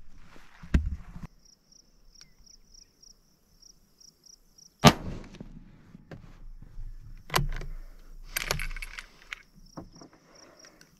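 Single shot from a .270 Winchester Winchester Model 70 bolt-action rifle firing a 150-grain Hornady SST handload, a sharp crack about five seconds in with a short ringing tail. A few seconds later come metallic clicks and rattles of the bolt being worked.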